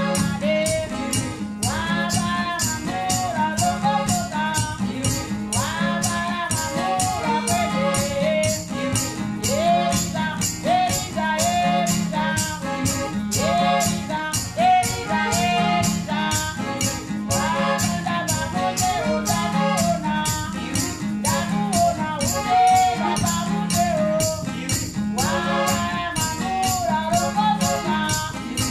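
Malawian jazz band song: singing over acoustic guitar and bass, with a shaker keeping a steady beat at about two to three strokes a second.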